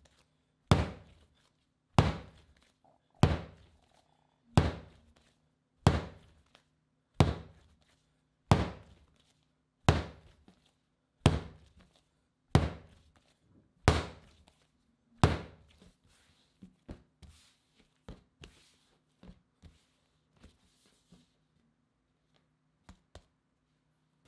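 Bread dough slapped down hard onto a worktop by hand and folded: twelve heavy thuds, about one every 1.3 seconds, as the gluten is worked up. After about 15 seconds the slaps become much lighter taps for a few seconds, the force eased now that the dough has turned smooth and elastic.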